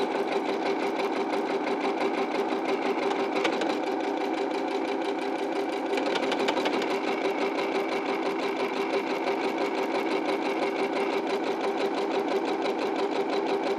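EverSewn Sparrow 25 computerized sewing machine running steadily, its needle stitching rapidly and evenly as it sews a one-step buttonhole. The sound shifts slightly about six seconds in.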